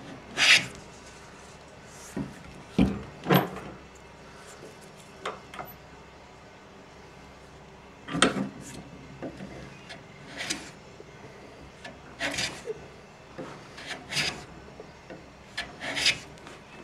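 Wood being abraded by hand in short, separate strokes, roughly one every one to two seconds, with pauses between.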